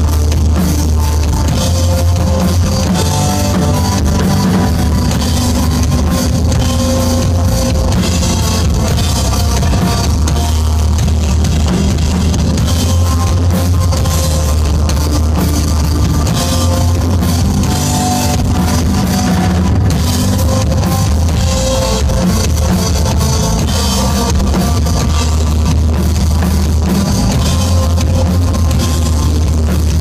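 Live rock band playing instrumental desert rock: electric guitar, bass guitar and drum kit together, loud and continuous with a heavy bass end.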